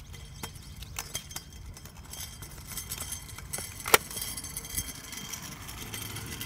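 Small clicks and rattles of protective gear being handled as a helmet chin strap is fastened, with one sharp click about four seconds in. A steady low rumble runs underneath.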